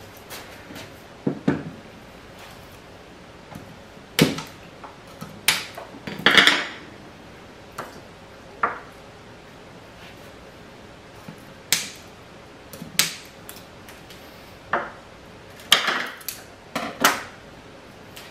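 Metal camera slider and gear being handled on a wooden table: irregular clicks and knocks as parts are picked up and set down, with a short rattling scrape about six seconds in.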